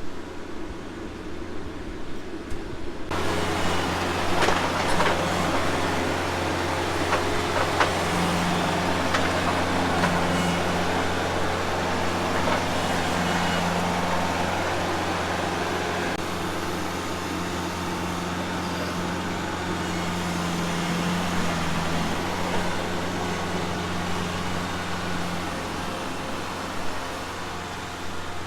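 A tractor's diesel engine running steadily, with a few knocks and clunks in its first several seconds.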